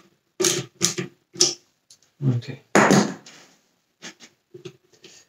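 Hand-held Torx screwdriver turning a screw into a vacuum cleaner's plastic motor housing, a short creak with each twist, three twists about two a second. This is followed by louder handling noise of tools and plastic parts around three seconds in, and a few faint ticks.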